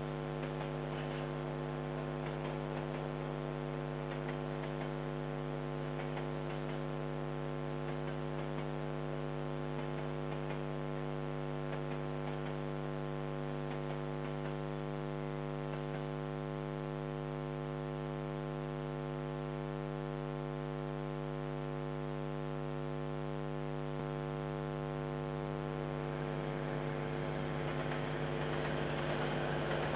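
Steady electrical mains hum in a security camera's audio: a low buzz with many evenly spaced overtones. Over the last few seconds a rougher noise rises underneath it.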